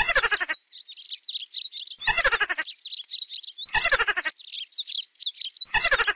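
Rapid high-pitched chirps and squeaks with hardly a break, cut across four times, about every two seconds, by a short harsh call with a low buzz under it.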